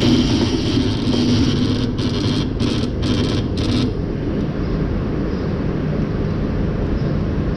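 Lely A4 milking robot running with a loud, steady buzzing hum from its arm. A hiss sounds over the first four seconds, breaking into several short bursts before it stops.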